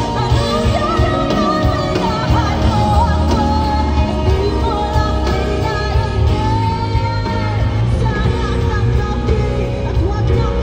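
Live pop ballad performance: a female singer's voice with wavering runs and one long held note a little past the middle, over band accompaniment with a heavy bass.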